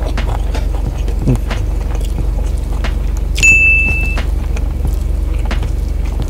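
Wet chewing and mouth clicks from eating rice and vermicelli with the hand, over the steady low hum of the car's idling engine. About halfway a single high beep sounds for under a second.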